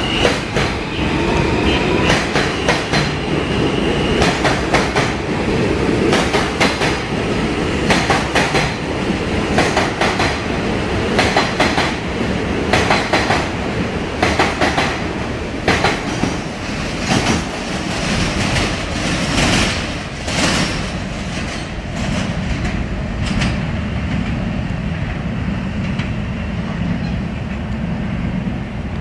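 R160 subway train pulling away, a loud rumble with its wheels clacking repeatedly over rail joints. The clacks thin out near the end, leaving a steadier low rumble.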